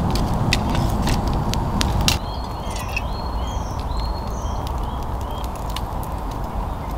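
Wood campfire crackling with sharp pops for about two seconds, then, after an abrupt cut, small birds giving a few short chirps over a steady low rumble.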